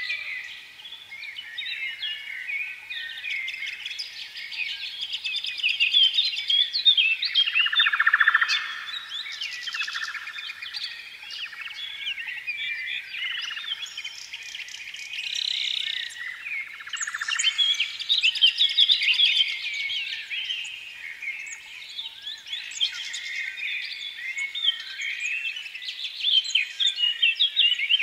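Many birds chirping and twittering together in a dense, continuous chorus of short high calls and trills.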